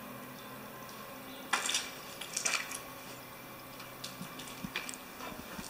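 Footsteps crunching and scraping over rubble and debris on a bare floor, with two louder steps near the middle and lighter scuffs afterwards.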